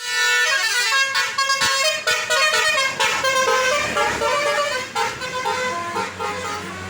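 Tour bus's Basuri 'telolet' multi-tone musical horn playing a quick melody, with notes stepping up and down every fraction of a second. It starts abruptly and softens a little near the end.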